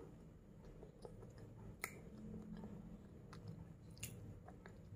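Faint chewing of a kerupuk (fried cracker), with two small sharp crunches about two seconds and about four seconds in.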